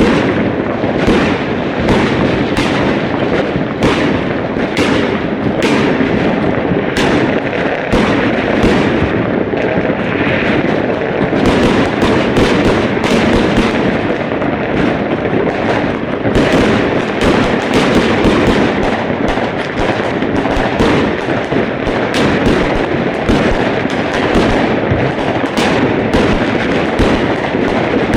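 Fireworks going off in a dense, unbroken barrage: many sharp bangs a second over a constant crackle.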